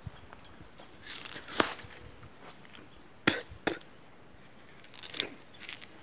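A stalk of raw sugarcane being bitten and torn with the teeth: four bouts of sharp, crisp crunching and cracking of the fibrous rind, spread a second or two apart.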